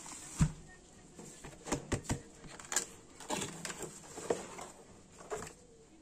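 Plastic bubble wrap around a keyboard crinkling and crackling as it is handled, with irregular sharp clicks and a soft knock about half a second in.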